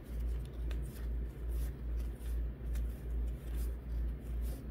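Baseball cards being slid and flipped from one hand's pile to the other, giving faint soft clicks and rustles, over a low hum that swells and fades about twice a second.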